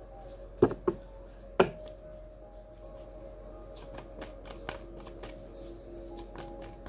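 Tarot cards being handled and shuffled: three sharp snaps within the first two seconds, then a run of lighter clicks and flicks, over soft background music with long held tones.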